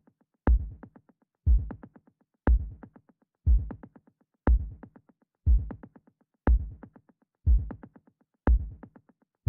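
Downtempo electronic drum loop on its own: a deep kick drum with a sharp click on the beat, once a second, each hit trailed by a run of quieter ticks that fade away like an echo.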